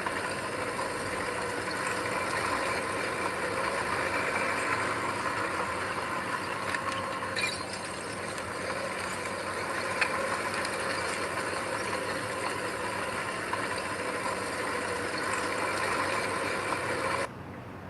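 Heavy diesel earthmoving machinery running steadily, with a couple of sharp metallic clanks about seven and ten seconds in. The sound cuts off suddenly near the end.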